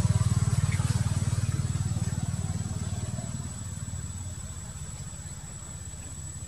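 A motor vehicle's engine, a low, evenly pulsing rumble that fades steadily as it moves away.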